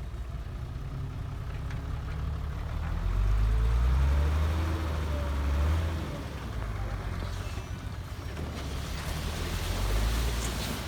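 Heavy diesel engine of earthmoving machinery running, revving up about three seconds in and easing back after about six seconds, then rising again near the end.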